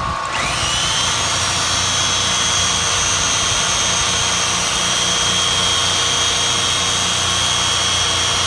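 Electric machine polisher with a foam pad running against car window glass, polishing off hard-water spots with window polish. Its motor whine rises in pitch just after the start, then holds steady.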